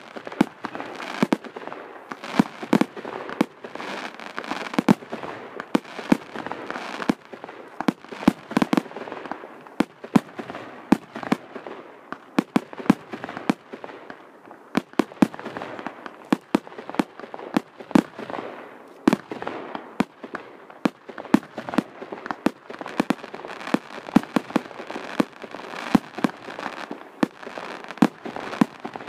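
Aerial fireworks bursting overhead: a dense, irregular string of sharp bangs and pops, several a second, over a steady crackling hiss.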